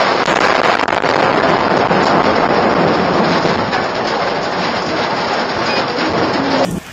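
Heavy rain and strong wind in a thunderstorm: a loud, steady roar of noise that cuts off abruptly near the end.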